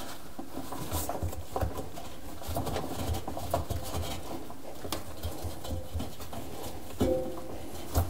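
Gloved hands and a wad of paper towel rubbing and scraping inside the rubber door seal of a front-load washing machine, working out the mold and lint buildup in its fold. Irregular soft bumps and small scratches and clicks.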